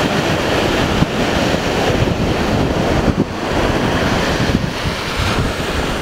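Ocean surf breaking and washing up on a sandy beach, with heavy wind buffeting the microphone.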